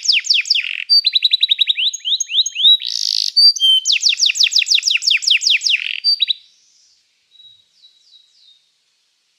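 Domestic canary singing: rapid trills of quick downward-sweeping notes in several phrases, with a short rushing note between phrases. The song stops about six seconds in, followed by a few faint chirps.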